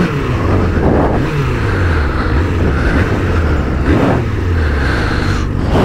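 Suzuki Bandit's inline four-cylinder engine running under way, its pitch falling and rising several times with the throttle, over a steady rush of wind noise.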